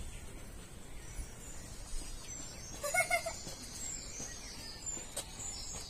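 A short wavering animal call about three seconds in, over small birds chirping and outdoor background noise.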